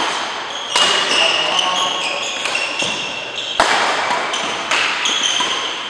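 Badminton rally: rackets strike the shuttlecock several times, each hit sharp and echoing, while sneakers squeak on the court mat between the shots.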